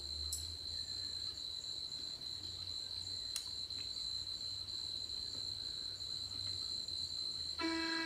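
Crickets trilling in a steady, unbroken chorus over a low rumble, with one sharp click about three and a half seconds in. Near the end a steady pitched tone with overtones sets in.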